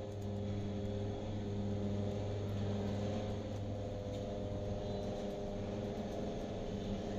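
A steady low drone of several held tones over a faint hiss, fading in from silence just before it.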